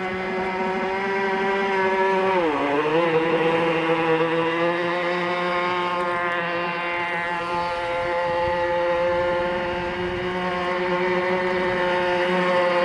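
Radio-controlled speedboat's motor running at speed with a steady high-pitched whine. Its pitch dips briefly about two and a half seconds in, then recovers and holds.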